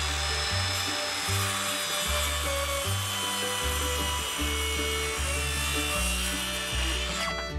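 Background music with the steady hiss of a power tool working wood laid over it. The tool noise runs for about seven seconds and stops abruptly near the end.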